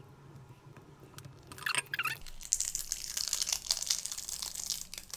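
Foil sheet and adhesive tape being peeled off a faux-leather book cover: a quiet start, then from about a second and a half in a dense rustling crackle of many small clicks as the foil and tape come away.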